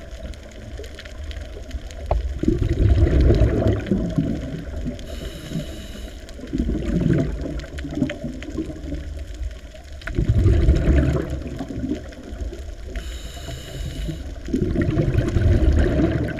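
Scuba diver breathing through a regulator, heard underwater: four gurgling bursts of exhaled bubbles about every four seconds, with a short hiss of inhalation before some of them.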